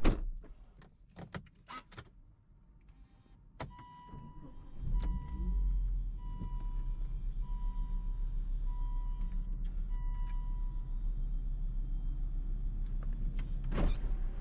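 Volvo C70's engine started with the key about five seconds in, catching after a brief surge and then idling steadily. Before and during the start a dashboard warning chime beeps about six times at an even pace, and a few clicks come early on from the key going into the ignition.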